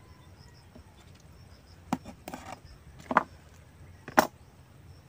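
Shellfish shell being cracked and broken apart by hand or teeth while eating: a few sharp cracks and a short crunch, about a second apart.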